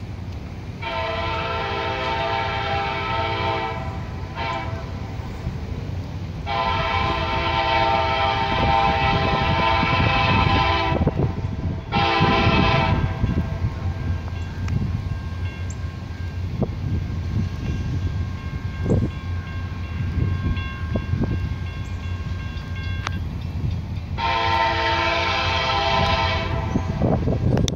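A diesel locomotive's multi-chime air horn sounding a pattern of blasts: a long one, a short one, a longer one and another short one in the first half, then one more long blast near the end. Between the blasts the low rumble of the passing freight train runs underneath.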